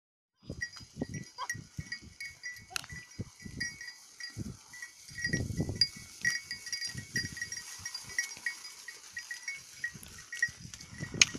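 Flock of sheep moving through dry grass: irregular rustling and low knocks, with a stronger stretch midway. A faint high chirping repeats throughout, and there is a sharp click near the end.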